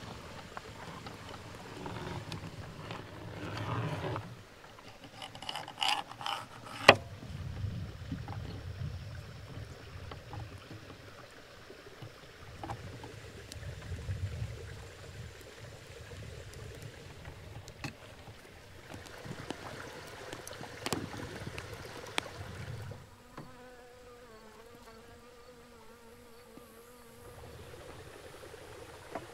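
A fly buzzing for a few seconds near the end, its pitch wavering as it moves about. Before that there are scattered clicks and knocks over a low rumble, the sharpest knock about seven seconds in.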